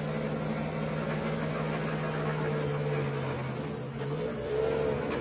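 Diesel truck engine running hard as the truck climbs a snowy hill, its tone dipping and falling in pitch about four seconds in, then picking up and growing louder again.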